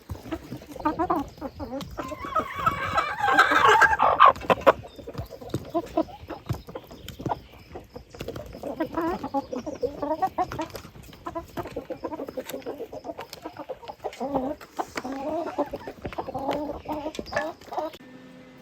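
Domestic hens clucking in short, repeated calls, with a louder, higher burst of calling about two to four seconds in.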